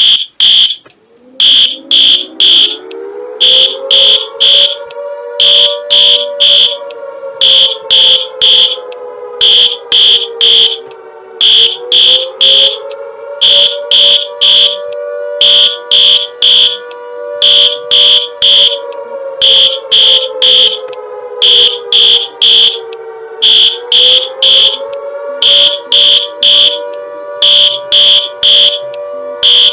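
Emergency air-raid alarm: loud, high-pitched beeps repeating rapidly in clusters, over an air-raid siren that winds up about a second in and then slowly rises and falls, dipping about every twelve seconds.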